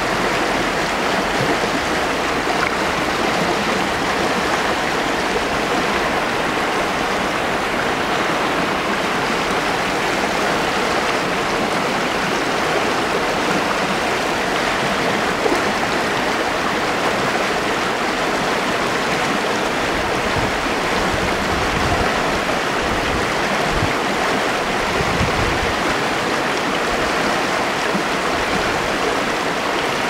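Rocky mountain river running over boulders in shallow rapids: a steady, even rush of water.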